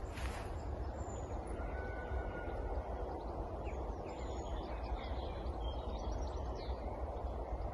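Outdoor background: a steady low rumbling noise with faint bird chirps and short whistled calls over it, mostly through the middle.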